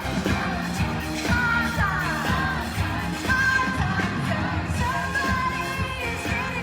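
Live pop-rock band playing, with a woman singing the lead vocal over drums and guitars.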